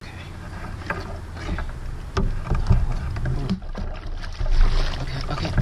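A canoe being paddled with a double-bladed paddle: splashing strokes and scattered knocks and clicks over a steady low rumble.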